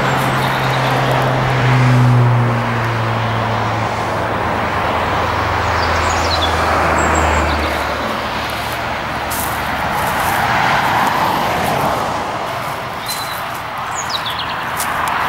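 Road traffic passing: steady tyre noise, with a heavy vehicle's low engine note falling in pitch and fading out about eight seconds in. A few short bird chirps sound over it.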